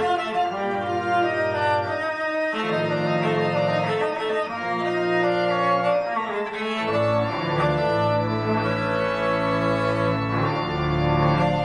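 Cello bowed in a slow melodic line, with held low notes and chords underneath.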